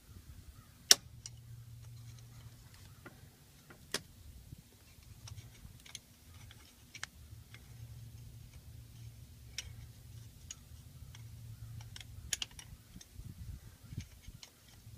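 Scattered small metallic clicks and taps of hand tools working at a tractor's PTO shaft housing, the sharpest about a second in, over a low wind rumble.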